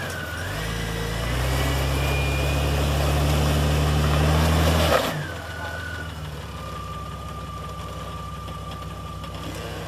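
Off-road 4x4's engine crawling under light throttle with a thin high whine over it. About five seconds in there is a sharp knock, and the engine drops back to a quieter, steady idle.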